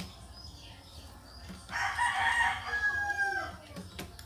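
A rooster crowing once, a long call of about two seconds that starts a little under halfway in. A sharp click comes near the end.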